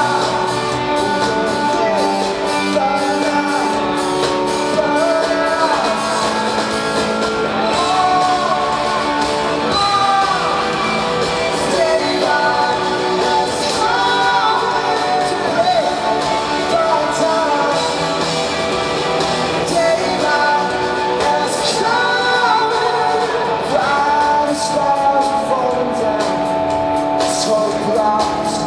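Rock band playing live, heard from the audience in a large hall: a lead singer over electric guitars and drums.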